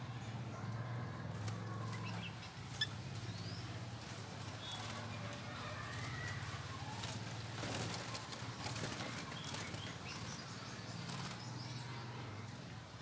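Caged Javan mynas and sooty-headed bulbuls moving about: wings flapping and fluttering, scattered clicks and rustles, and faint short chirps, over a steady low hum. A single sharp click stands out about three seconds in.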